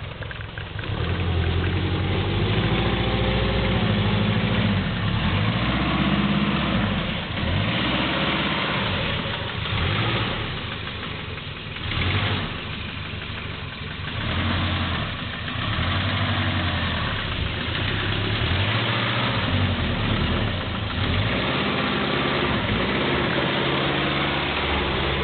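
Subaru GL turbo's EA82 turbocharged flat-four engine revving up and falling back again and again under load, with a loud rod knock: the worn engine is on its way out.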